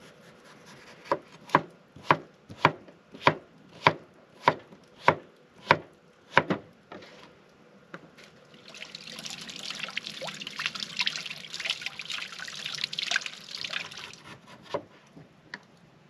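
Chef's knife chopping a cucumber on a wooden cutting board: about ten even chops, roughly one every half second. Then several seconds of rustling as the cut pieces and salad greens are tossed by hand in a wooden bowl.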